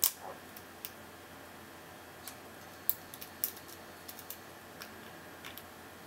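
Small, sharp metallic clicks of a lock pick and tension wrench working the pins in the keyway of a brass Vachette Atlas 50 mm padlock, coming irregularly. The loudest click comes right at the start, and a cluster follows about three seconds in.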